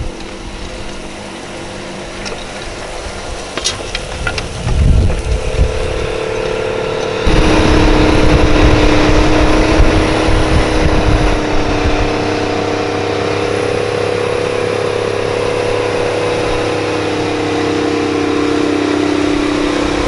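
Big Bud four-wheel-drive tractor diesel engines running steadily under load while pulling moldboard plows, with wind gusts hitting the microphone around four to five seconds in. The sound jumps louder about seven seconds in and then holds steady.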